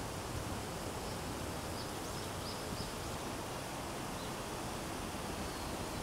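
Steady outdoor background hiss of a riverside, with a few faint, short, high chirps from a small bird, mostly in the first half.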